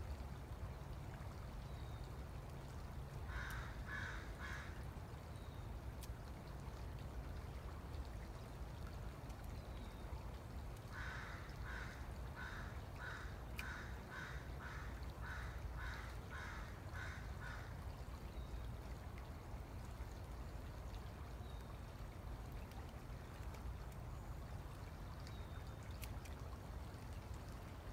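A bird calling in evenly spaced calls, about two a second: three calls a few seconds in, then a longer run of about a dozen some seconds later. A steady low rumble runs underneath.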